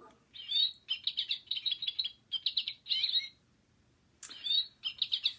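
Bird-like chirping: quick runs of high twittering chirps, a pause, then another run near the end.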